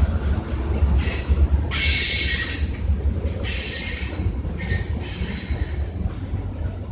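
Freight train rolling slowly past, its wheel flanges squealing on the rail in several short shrill bursts over a low rumble.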